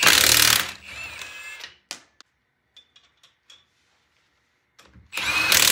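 Milwaukee M18 half-inch cordless impact wrench hammering on a car's lug nuts, in one burst at the start that trails off after about two seconds and another starting about five seconds in, with a few light clicks between. The tool, repaired after it would only clunk, is hammering normally again.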